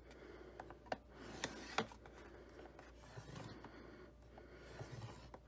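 Bone folder dragged along the groove of a We R Memory Keepers Explosion Board, pressing a score line into patterned paper, with faint scraping and rubbing of paper on the board. A few light clicks come about a second in and twice more shortly after.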